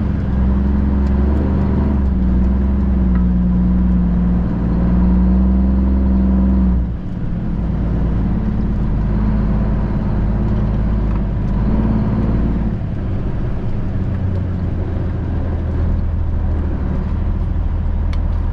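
Diesel engine of a Freightliner FLD 112 semi, a Cummins ISM, running steadily while driving. Its pitch and level drop suddenly about seven seconds in, then hold steady again.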